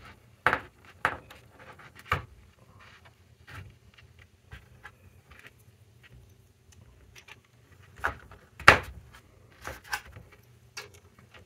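Irregular sharp plastic clicks and taps as small 3D-printed clips are pushed onto the edge of a 3D-printed plastic filter frame and handled on the bench. The sharpest click comes about three-quarters of the way through.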